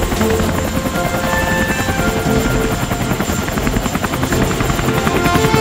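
Steady, rapid chopping of helicopter rotor blades as a toy rescue helicopter hovers, with light background music playing short melody notes over it.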